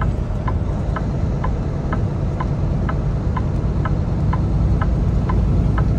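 Steady low rumble of a Kenworth T680 semi truck cruising on the highway, heard from inside the cab, with a light tick repeating about twice a second.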